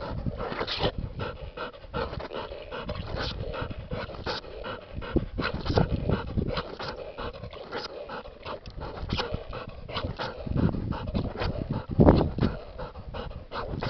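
A dog panting close to the microphone, with a louder bump near the end.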